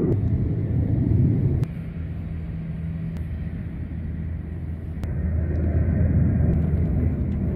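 Low rumbling that cuts off abruptly about a second and a half in, followed by a steadier low hum that swells again near the end, with a few faint clicks.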